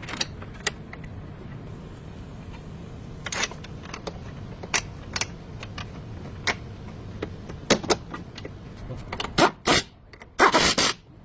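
Scattered sharp metallic clicks and clinks from work on a car, over a steady low hum, with a louder, longer scraping noise near the end.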